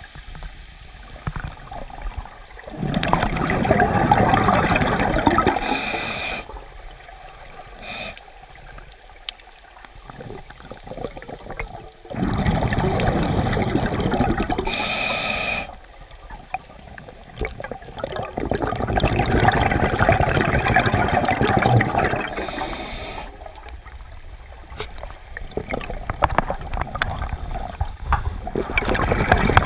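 Scuba diver breathing through a regulator underwater: three long exhalations of bubbling, about every eight or nine seconds, each ending with a short hiss, with quieter gaps between.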